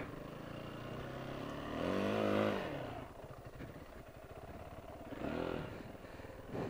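Yamaha dirt bike engine running at low throttle, revving up briefly about two seconds in, then again more lightly about five seconds in.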